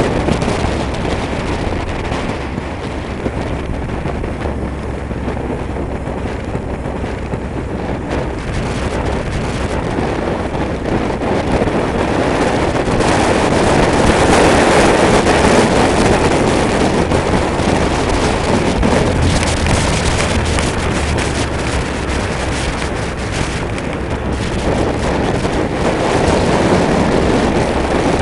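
Wind rushing over the microphone of a motorcycle-mounted camera at road speed, with the motorcycle's engine running steadily underneath; the wind gets louder about halfway through.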